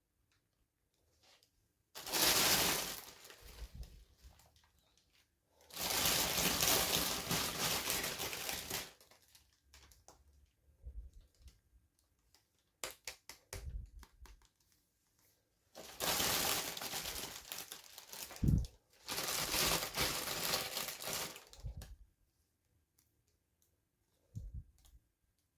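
Toy packaging being crinkled and torn open by hand: four bursts of crinkling a few seconds each, with small clicks and taps between them.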